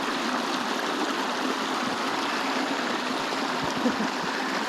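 Small river flowing over rocks: a steady rush of running water.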